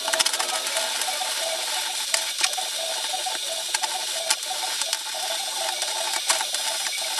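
Stick (shielded metal arc) welding: the electrode's arc crackling and sputtering steadily, a dense run of irregular pops and clicks over a hiss.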